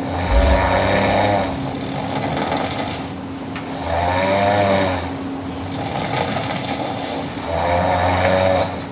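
A person snoring loudly three times, about three to four seconds apart. Each snore is a rumbling breath lasting just over a second with a wavering pitch, and a faint steady hum sits underneath.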